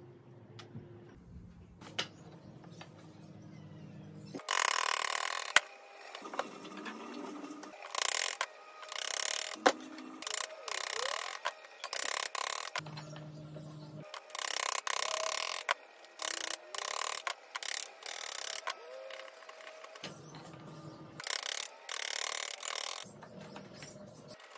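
Steel bench chisel paring a small dark hardwood bowtie piece, a series of short scraping, shaving cuts about a second apart with pauses between them.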